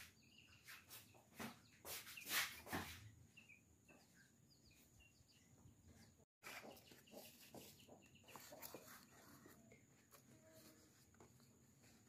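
Near silence with a few faint sharp clicks and knocks in the first three seconds and faint animal calls, likely chickens clucking, in the background. The sound cuts out completely for a moment a little past the middle.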